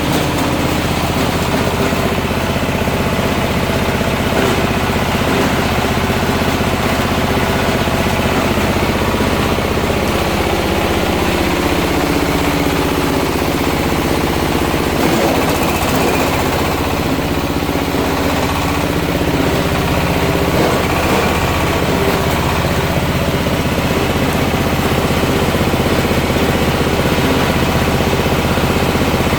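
Type 60 coconut husk grinding machine (cocopeat shredder) with a 12 mm screen running steadily at a constant loud level, its drive engine humming under a dense mechanical rattle from the crushing blades.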